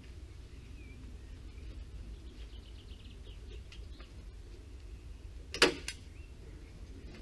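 Two sharp staple-gun shots about a third of a second apart, fixing breathable membrane to a timber porch frame. Faint bird chirps come a couple of seconds before.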